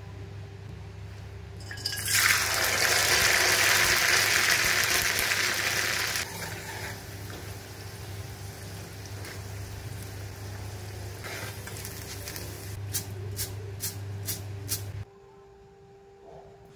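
Whole masoor dal, soaked and drained, frying in hot oil in a steel pan. A loud burst of sizzling comes about two seconds in as the wet lentils meet the oil, then settles to a steadier, quieter sizzle. Near the end come a few sharp metal taps from the slotted spoon against the pan, over a steady low hum, before it cuts off suddenly.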